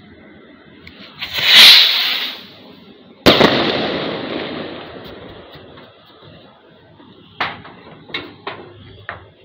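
Kwitis, a small Filipino stick rocket, launched from the hand: a hissing whoosh a little over a second in that swells and fades within about a second, then a sharp bang about three seconds in that echoes and dies away over about two seconds. A few short sharp clicks follow near the end.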